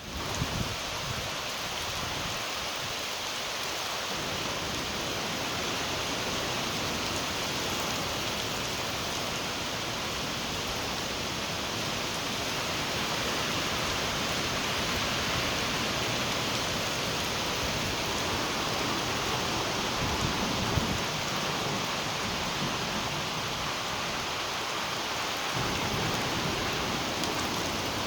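Rain falling steadily, a continuous hiss, with wind rumbling in low gusts that come and go.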